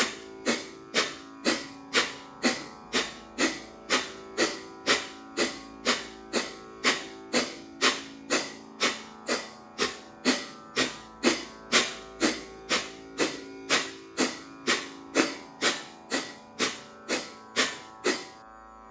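Instrumental music with sharp plucked-string notes about twice a second over a steady drone, keeping an even pace. It cuts off suddenly near the end.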